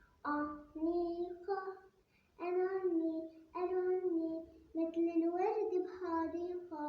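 A child singing a song in Arabic, unaccompanied, in short melodic phrases with brief breaths between them.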